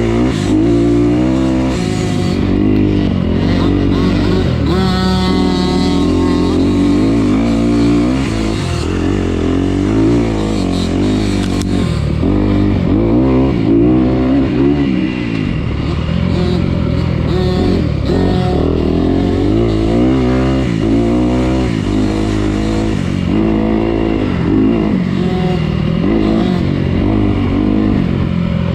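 Dirt bike engine running hard, its pitch rising and falling over and over with throttle and gear changes.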